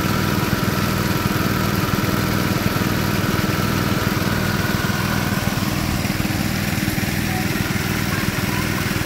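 Small petrol engine driving a portable water pump, running steadily at a constant speed, with muddy water gushing out of the discharge pipe.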